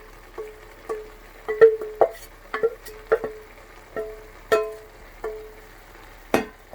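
Background music: a plucked-string instrument picking single notes, mostly on one repeated pitch, about one to two notes a second, each ringing briefly and fading.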